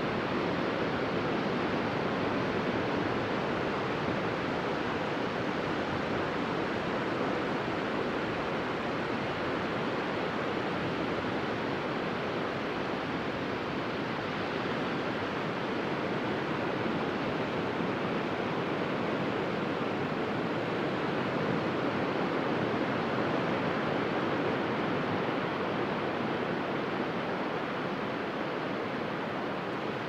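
Surf of small sea waves breaking onto a sandy beach: a steady, continuous rush of water.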